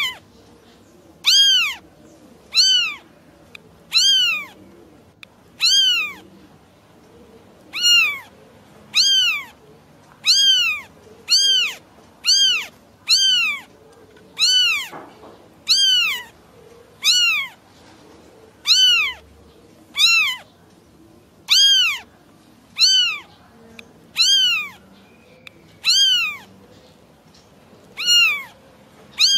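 Kitten meowing over and over, about 25 short calls at a steady pace, each rising and then falling in pitch: a kitten calling for its mother.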